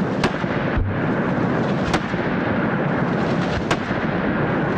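Gunfire over a continuous rush of blast noise: three sharp shot cracks, a little under two seconds apart.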